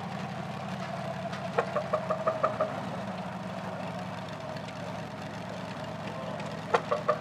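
V8 engine in a converted grey Massey Ferguson tractor running steadily at low revs as the tractor creeps along. Twice, about a second and a half in and again near the end, a quick run of about half a dozen short, sharp pitched pulses sounds over the engine, louder than it.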